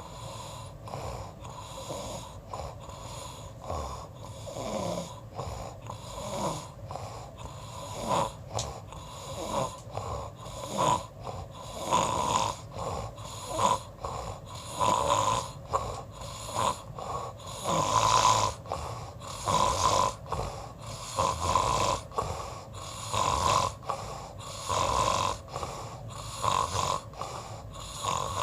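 Snoring: a steady run of snores, about one every one and a half seconds, growing louder from about a third of the way in.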